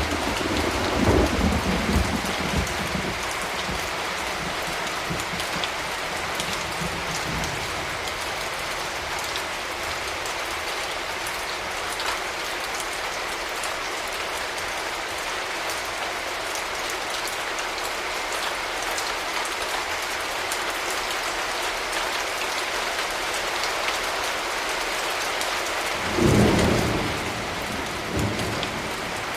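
Steady rain falling throughout. The tail of a thunder rumble fades over the first couple of seconds, and near the end a short peal of thunder rolls in, followed by a smaller one.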